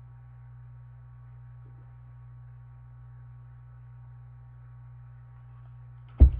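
Steady low electrical hum in a quiet room. Near the end comes a single sudden loud thump as the hardcover picture book is handled against the recording device.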